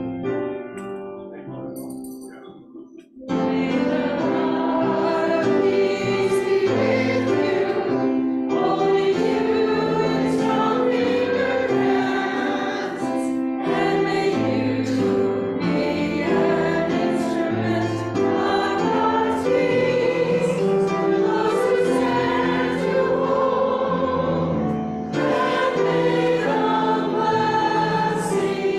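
Choral hymn music: a few keyboard notes fade out, then a choir with accompaniment comes in about three seconds in and carries on at a steady level.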